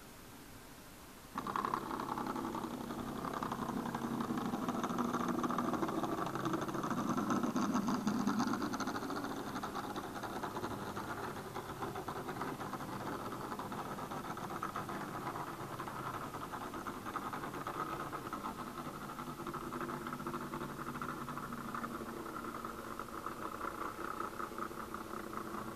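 OO gauge model diesel locomotive running on the track: a steady electric-motor hum with wheel noise on the rails. It starts abruptly a second or so in and is loudest for the next several seconds.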